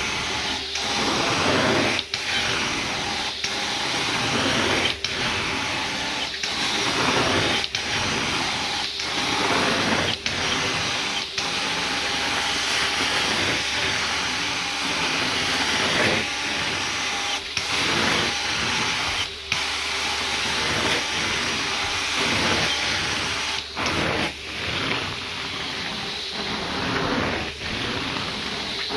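Carpet-cleaning extraction wand under suction: a steady rushing noise broken by short dips about every second and a half, as each stroke ends and the wand lifts off the carpet.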